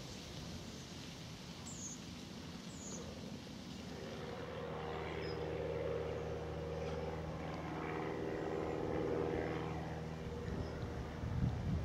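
A motor vehicle's engine hum, with a steady low pitched drone that swells from about four seconds in and fades again near the end, as a vehicle passes. There are a few brief bird chirps before it.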